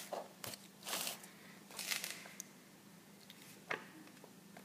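Paper pages of a LEGO instruction booklet being handled and turned: several short rustles and swishes, the loudest about one and two seconds in.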